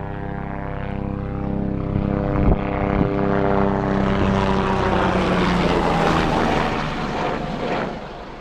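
Bell 407 helicopter flying past: steady rotor and turbine tones swell into a loud wash of noise with the pitch sliding down as it goes by, then fading near the end as it flies away.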